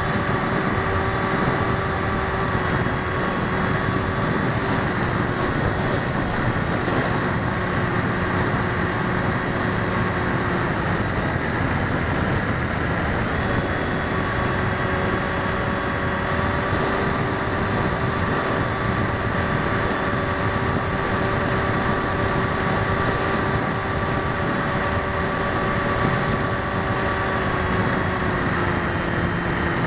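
RC model's motor and unbalanced propellers heard through an onboard keychain camera's microphone, a steady buzzing whine under heavy wind noise. The whine's pitch dips around ten seconds in, climbs back a few seconds later, and drops again near the end as the throttle changes.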